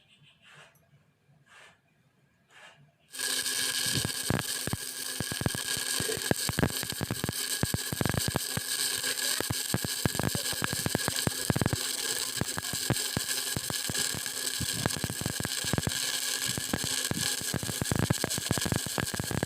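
Stick-welding arc on a 6013 electrode, struck about three seconds in and then crackling and sizzling steadily with dense irregular pops over a faint steady hum.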